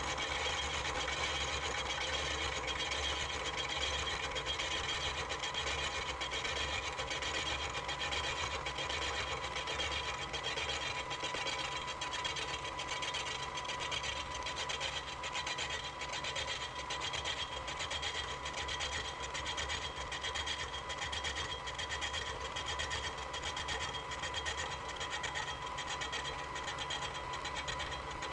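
Milling machine driving a 2-inch, three-flute carbide insert face mill across the cast iron base of a drill press, on a deeper cleanup pass. It makes a steady, rapid, even rattle from the cutter with a steady whine over it.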